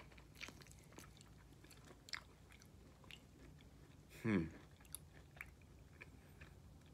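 A person chewing segments of citrus fruit, with faint wet mouth clicks. About four seconds in comes one short hum that falls in pitch.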